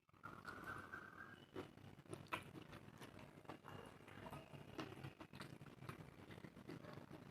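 Close-miked eating sounds of someone chewing rice and curry: soft wet chewing with many small mouth clicks and smacks.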